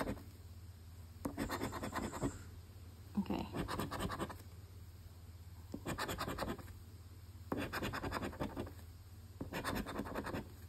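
A coin scratching the silver coating off a paper scratch lottery ticket in short strokes: about five separate bursts of scratching, each under a second, with brief pauses between.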